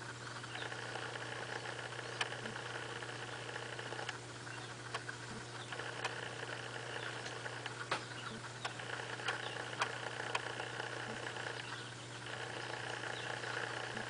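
A steady mechanical hum with several short, light clicks scattered through it, mostly between about two and ten seconds in.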